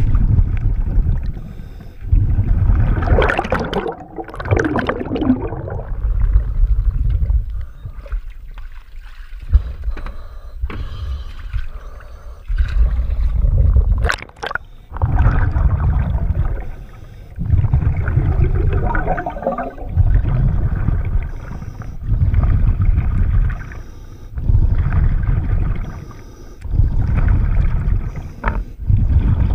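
A scuba diver breathing through a regulator underwater: bursts of exhaled bubbles rumble and gurgle past the microphone every two to three seconds, with quieter inhalations between. A single sharp click about halfway through.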